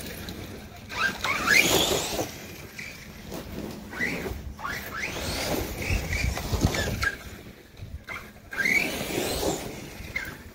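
Redcat Landslide XTE 1/8-scale electric RC monster truck on a 4S LiPo, its brushless motor whining up and down in pitch as it is throttled on and off across grass, with a heavier low rumble about six seconds in.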